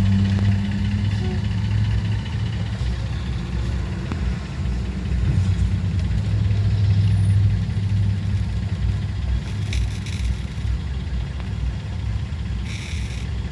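Idling engines in a slow traffic jam, heard from inside a car's cabin: a steady low hum. Two short hisses come about ten seconds in and again near the end.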